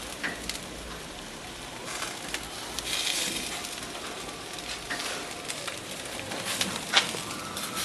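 Charcoal barbecue fire crackling and sizzling steadily, with scattered sharp pops and one louder pop about seven seconds in.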